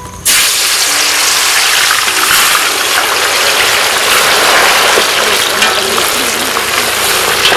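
Potato slices deep-frying in hot oil in an iron kadai: a loud, steady, dense sizzling crackle that starts abruptly about a quarter second in.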